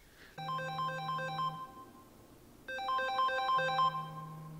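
Smartphone alarm going off: a short electronic jingle of quick melodic notes plays, stops for about a second, then plays again.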